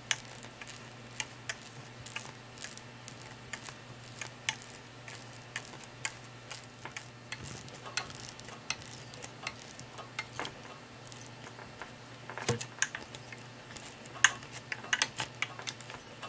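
A thread-cutting die in a die stock being worked by hand onto a small brass rod in a jeweler's lathe, cutting a screw thread. It gives irregular small metallic clicks and ticks, coming thicker in the last few seconds.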